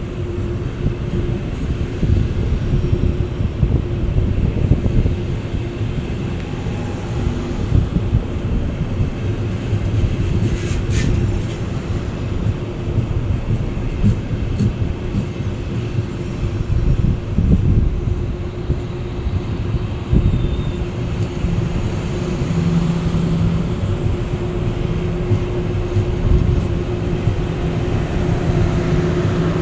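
Electric train on the high-speed line rumbling steadily, with a constant hum running under the rumble.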